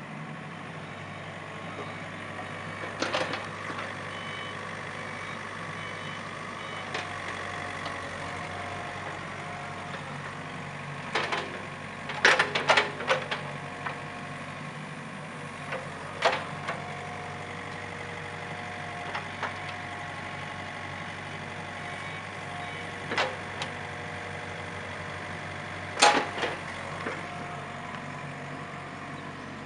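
Komatsu PC50MR-2 mini excavator's diesel engine running steadily as the boom and arm are worked and the house swings. A hydraulic whine comes and goes with the movements, and there are a few sharp metal clanks, the loudest clustered about twelve seconds in and another near twenty-six seconds.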